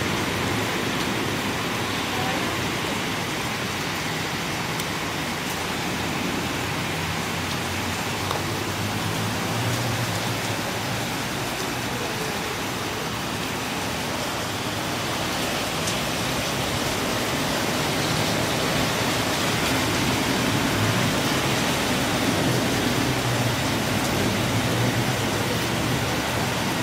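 Rain mixed with hail falling steadily: a dense, even hiss with a few faint sharp ticks.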